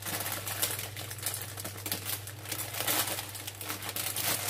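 Plastic packaging crinkling and rustling in the hands as a bag of dried alder cones is opened, irregular crackles throughout, over a steady low hum.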